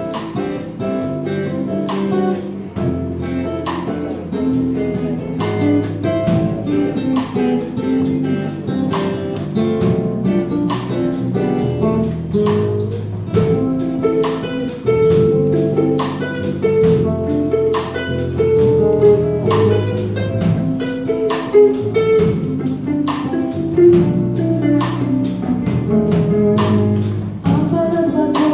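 Band playing the instrumental introduction of a song: electric and acoustic guitars over bass guitar and a drum kit keeping a steady beat, before the vocals come in.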